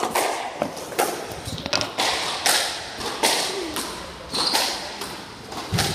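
Squash rally: the ball cracks off rackets and the court walls in a series of sharp hits, about one a second, echoing in the enclosed court.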